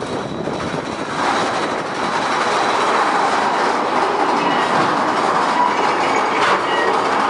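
Mine-train roller coaster cars rattling and clattering along the track, heard from the last car, getting louder about a second in as the train runs into a tunnel, with a few faint wheel squeals.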